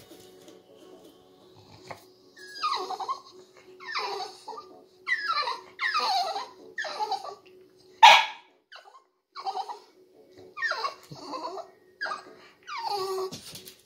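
French bulldog whining in about a dozen short, high cries that fall in pitch, the loudest about eight seconds in: begging to be let up onto the couch.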